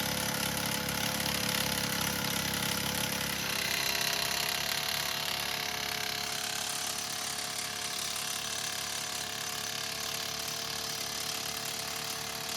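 An engine running steadily with a fast, regular low beat. Its pitch rises slightly about three and a half seconds in.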